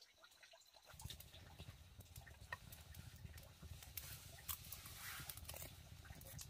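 Small wood fire of kindling sticks and logs burning, starting about a second in: faint scattered crackles and snaps over a low steady rumble.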